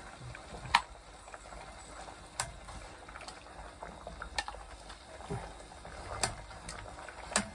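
A pot of oden simmering on a portable gas burner, a soft steady bubbling, with about five sharp clinks of a ladle and utensils against the pot and bowl as food is served out.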